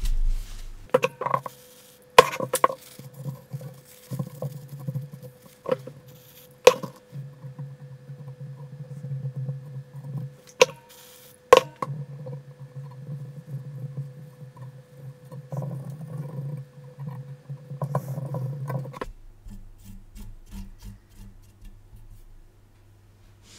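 Work-bench handling noises from taking the graphics card apart: scattered sharp taps and knocks of hard parts being set down and moved, over a steady hum that cuts off suddenly near the end.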